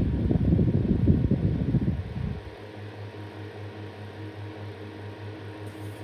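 12-inch rotating box fan running. Its air buffets the microphone with a loud low rumble for about the first two seconds, which cuts off suddenly, leaving the fan's steady low motor hum.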